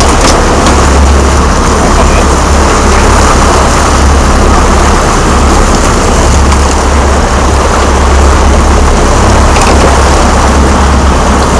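Sportfishing boat's engine running steadily with a low drone, under a loud, constant rushing noise.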